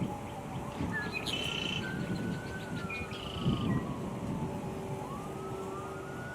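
Birds chirping in two short trilled phrases, about one and three seconds in, over a siren slowly wailing up and down, with a steady low rumble underneath.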